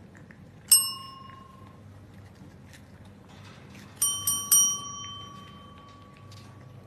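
Cats pressing metal service call bells with their paws: one ring about a second in, then three quick rings a few seconds later, the last one ringing on.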